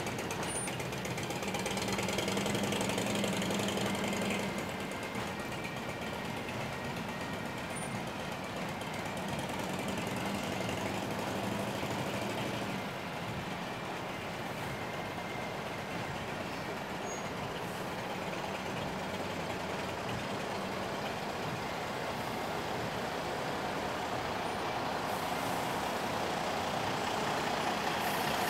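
Procession of vehicles, a fire department van and a fire chief's SUV among them, driving slowly past one after another, with a steady sound of engines and traffic.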